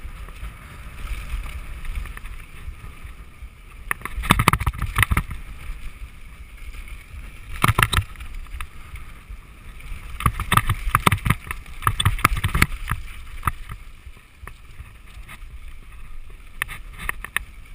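Mountain bike running fast down a dry dirt trail: a steady low rumble of wind on the microphone and tyres on the ground, broken by bursts of rattling and knocking as the bike goes over bumps, about four seconds in, around eight seconds, for a couple of seconds in the middle, and again near the end.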